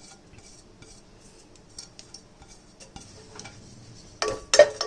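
A spoon stirring and scraping in a pan as spices are dry-roasted: a few faint clinks at first, then, about four seconds in, a run of loud quick strikes and scrapes with a ringing note.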